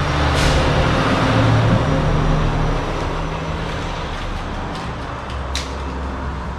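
A motor engine running steadily, slowly getting quieter, with a couple of sharp clicks.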